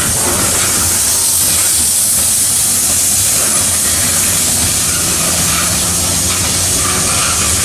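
Steel wheels of loaded coal hopper cars rolling on street-running track, a loud, steady rushing hiss as the end of the freight train passes.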